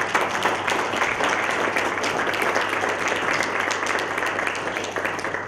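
Audience applauding steadily, with a drop in loudness at the very end.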